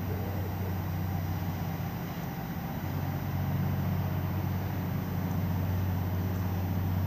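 Steady low drone of a large cruise ship's engines as it passes, with a few steady low tones, growing a little louder about three seconds in.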